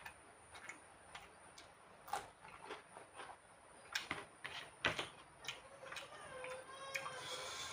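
Close-up eating sounds: fingers mixing and squishing rice and pork curry on a ceramic plate, with chewing and lip smacks and several sharp clicks of fingers against the plate, the loudest about five seconds in.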